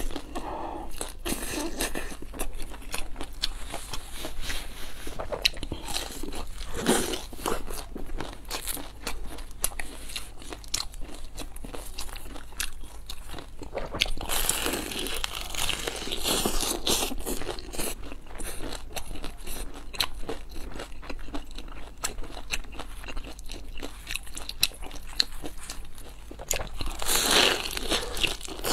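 Close-miked biting and chewing of a crispy pan-fried dumpling: a steady run of crunches from the fried crust, with louder clusters of bites about halfway through and near the end.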